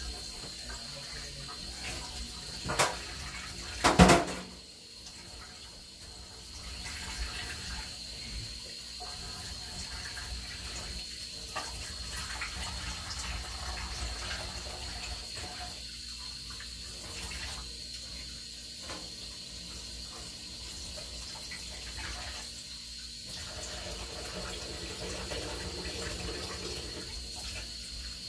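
Water running from a kitchen tap into the sink while things are rinsed and handled. There are two sharp knocks a few seconds in, about a second apart, and the second is the louder.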